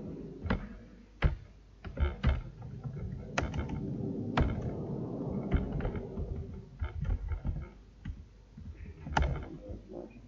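Computer keyboard typing: irregular key clicks at an uneven pace, a few struck harder than the rest.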